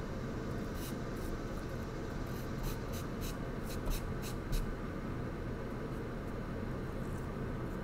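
Charcoal scratching on paper in a run of short strokes, about three a second, through the first half, over a steady low background hum.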